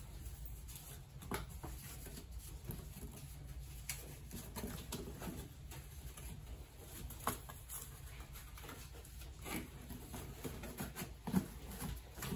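Packing materials being handled: bubble wrap and cardboard rustling and crinkling, with scattered small clicks and taps as an item is wrapped and fitted into a box.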